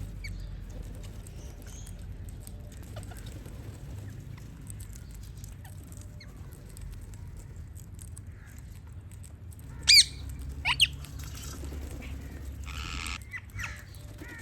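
Parrots calling with short, sharp, high-pitched squawks: two loud ones a little under a second apart about ten seconds in, and fainter chirps scattered throughout, over a steady low rumble.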